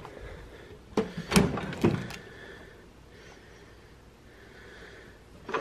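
Metal tool chest drawer sliding open on its runners, with a few sharp clatters of its contents about one to two seconds in.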